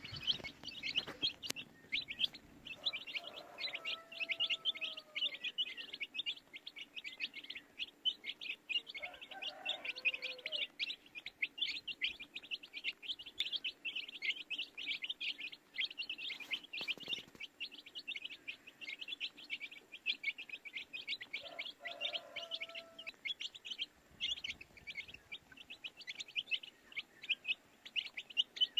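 Baby chicks cheeping continuously in a rapid, high-pitched stream of chirps. Three times a fainter, lower drawn-out sound comes through beneath them.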